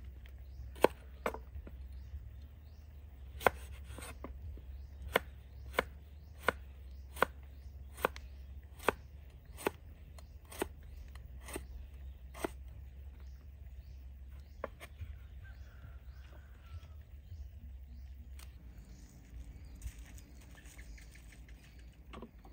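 Large knife slicing a cucumber on a wooden cutting board: about a dozen sharp knocks at a steady pace, roughly one every three-quarters of a second, then a few scattered chops in the second half.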